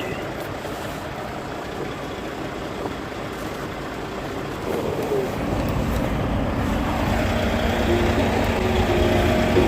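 Steady motor-vehicle noise, growing louder and deeper about halfway through. Background music comes in near the end.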